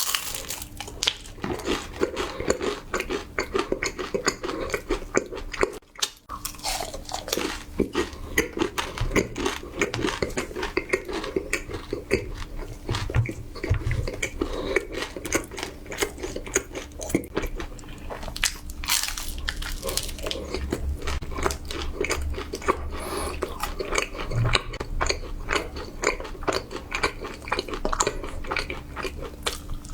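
A person biting and chewing crisp food up close: dense, irregular crunching that carries on with only a short pause about six seconds in.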